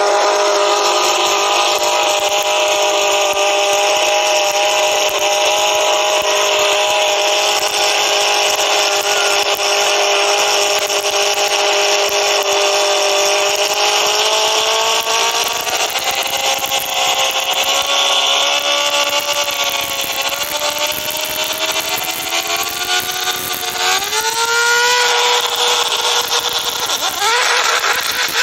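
Billet four-rotor rotary engine of an all-wheel-drive Mazda RX-7 held at high revs for a long stretch. Its pitch wavers and dips in the second half, then climbs sharply twice near the end as it is revved up for a burnout.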